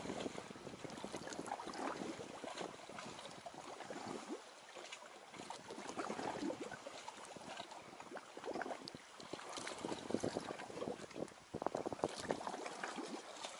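Small lake waves lapping and splashing irregularly against the stony shore at the water's edge.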